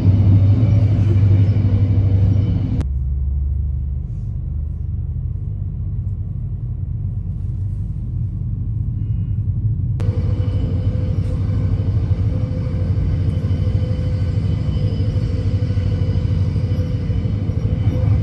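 Passenger train running at speed, heard from inside the carriage: a steady low rumble with a faint whine above it. The sound changes abruptly about 3 and 10 seconds in, going duller and then back.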